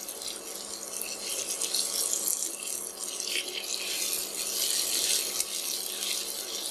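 Garfish pieces sizzling in hot oil and onion masala in a nonstick frying pan, a steady hiss with small crackles, while a silicone spatula turns them.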